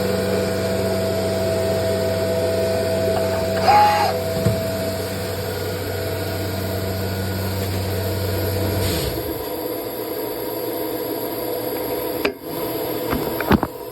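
Biesse CNC machine running with a steady, pitched mechanical hum. About nine seconds in, the low part of the hum stops and a higher whir carries on. A few sharp clicks come near the end.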